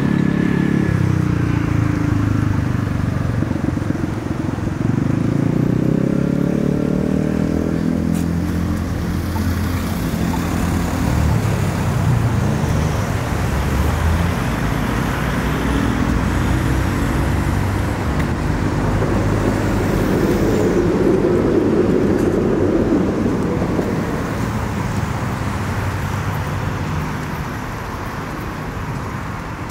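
Vehicles running, their motor pitch rising and falling several times over a steady rumble.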